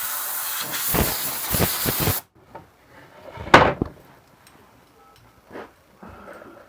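Sandpaper scratching across a wooden board in short strokes, a rasping hiss that stops abruptly about two seconds in. A second or so later comes one loud knock, followed by a few fainter knocks.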